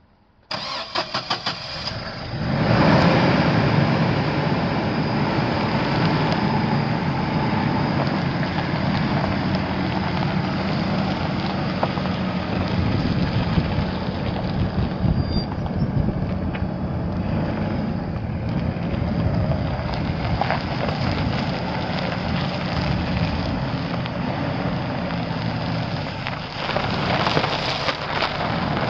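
2006 Chevrolet Colorado's 2.8-litre four-cylinder gas engine being cranked by the starter for about two seconds, then catching and settling into a steady idle. The idle grows a little louder near the end.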